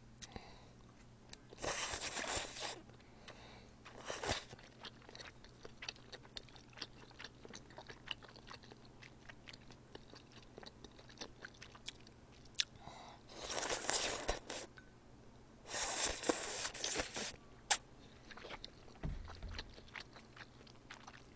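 Close-miked slurping of udon noodles: four noisy slurps, the longest about a second each, with wet chewing clicks in between.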